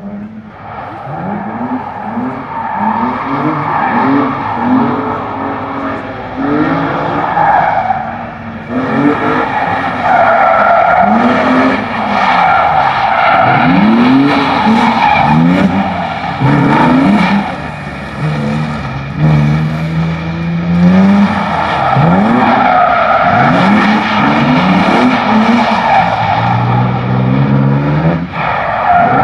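BMW M3 drifting: the engine revs up and falls back again and again as the throttle is blipped, with tyre squeal swelling during each slide.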